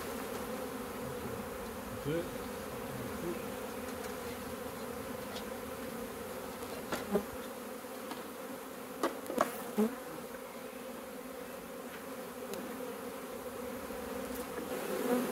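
Honeybee swarm buzzing, a steady hum of many bees in flight, with a few sharp clicks about seven and nine to ten seconds in.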